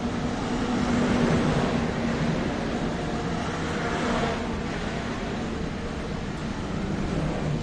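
Passenger train running, a steady rumble with a low hum over it.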